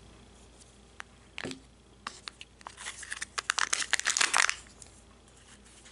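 Plastic wrapping on a Kinder Joy egg crinkling and tearing as it is pulled open: a quick run of irregular crackles from about two seconds in to a little past four seconds, with a single small click before it.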